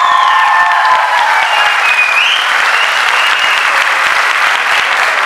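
Audience applauding loudly, with a few high-pitched calls over the clapping.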